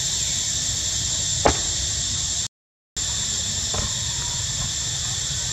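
Steady high-pitched drone of insects in the trees, over a low rumble of wind on the microphone, with a single sharp click about a second and a half in. The sound cuts out completely for about half a second midway.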